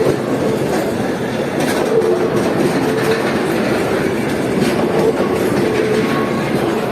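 Toy train running along its track, heard from on board: a steady rumble and rattle of the carriages and wheels on the rails.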